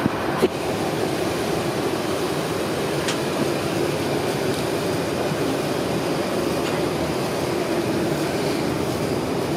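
Steady rushing hum of airliner cabin air conditioning, with a single sharp click about half a second in.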